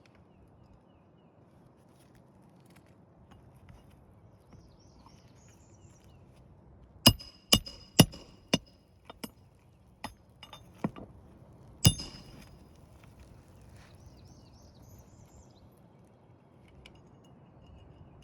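A hammer striking metal during shingle repair work, about eight sharp ringing clinks spread over five seconds, the loudest at the start and the last.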